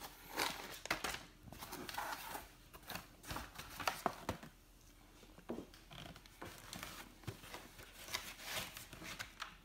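Irregular rustling and crinkling with small clicks: hands handling the packaging of a graphics card.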